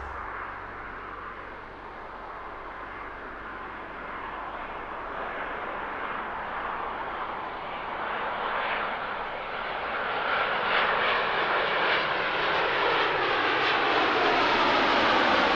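Japan Airlines Boeing 787's GEnx turbofan engines on landing approach. The jet roar grows steadily louder as the airliner comes closer, and a whine from the engines comes through over the last few seconds.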